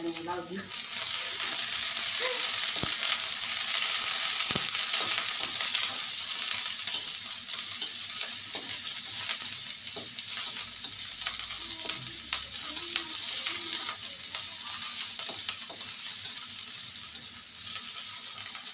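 Sliced onions sizzling in hot oil in a metal wok, stirred with a spatula that taps the pan now and then. The sizzle jumps up about a second in, then slowly eases off.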